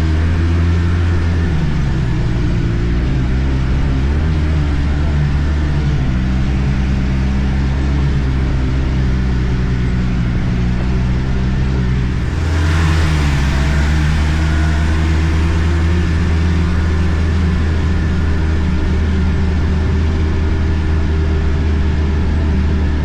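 Arctic Cat F1100 turbo snowmobile's turbocharged four-stroke engine running while riding, its pitch rising and falling with the throttle. A brief rush of noise comes about halfway through.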